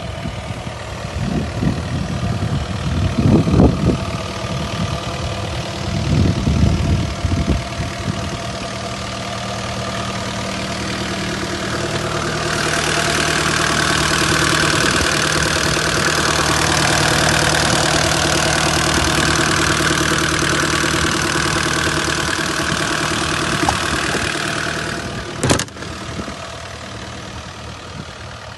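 Kubota KX71-3 mini excavator's diesel engine running, with heavy low surges in the first several seconds. About halfway through, a loud steady hiss joins the engine for some twelve seconds and ends with one sharp knock, after which the engine runs on more quietly.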